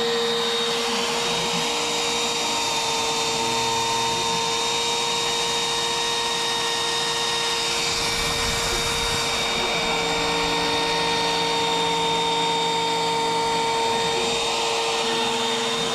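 Router spindle of a small NextWave Piranha CNC router running with a steady high whine while its bit mills 3/4-inch PVC trim board. Lower tones switch on and off every few seconds as the machine moves.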